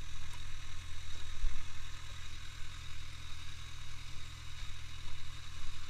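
Suzuki GSX650F inline-four engine idling steadily as the motorcycle rolls slowly, a low even rumble with no revving.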